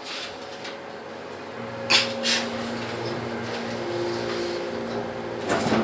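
Mitsubishi elevator starting to travel about a second and a half in: a steady machine hum with several held tones, with a sharp click just after it starts.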